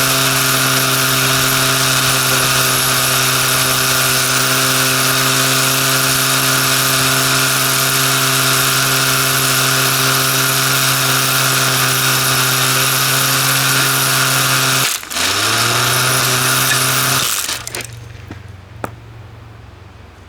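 Andis hair dryer, stripped of its shell, running steadily: a motor whine under loud fan and airflow hiss. About 15 seconds in it cuts out for an instant, comes back lower and rising, then stops about two seconds later and winds down, with a few faint clicks near the end. The dryer is failing, and it leaves a reek.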